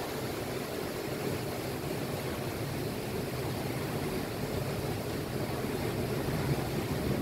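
Steady rushing noise of tropical-storm wind and heavy surf breaking against a sea wall.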